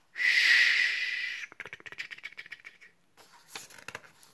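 Made-up rain sound: a short hissing rush, then quick irregular pattering taps and clicks that thin out.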